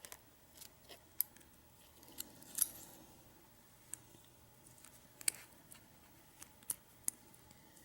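Scattered small metallic clicks and ticks of lock picks working the pin-tumbler core of a U-Haul disc padlock, irregular and faint, with a slightly louder click about two and a half seconds in and another a little past five seconds.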